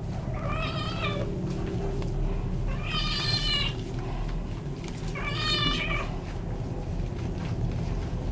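Young tabby cat meowing three times, each call about a second long, while it is held wet and soaped during a bath.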